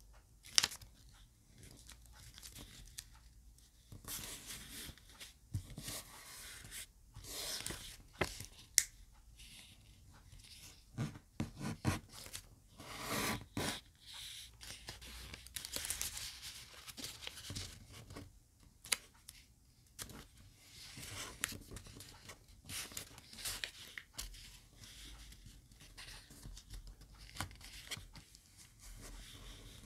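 Sheet of origami colour paper rustling, sliding and crinkling as hands fold it and press the creases flat, in irregular swishes with a few sharp clicks.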